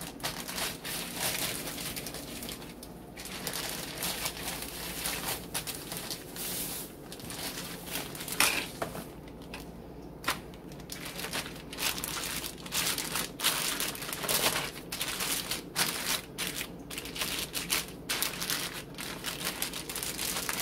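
Plastic zipper-seal bag crinkling and rustling in irregular bursts as hands squeeze and knead chicken and marinade inside it, working the seasoning over the chicken. One louder knock comes about eight seconds in.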